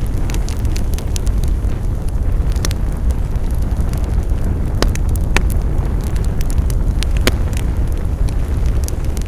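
Wood fire burning with a steady low rumble and irregular sharp crackles and pops of burning wood, a few louder snaps among them.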